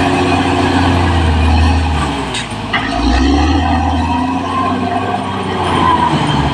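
Caterpillar D6R XL bulldozer's diesel engine running steadily; its low note drops and shifts about halfway through, just after a brief sharp knock.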